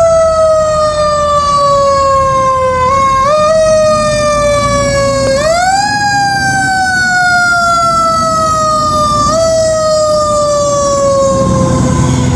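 Fire engine siren: one wailing tone that slowly falls in pitch and is pushed back up in short rises a few times, over the low rumble of the truck's engine.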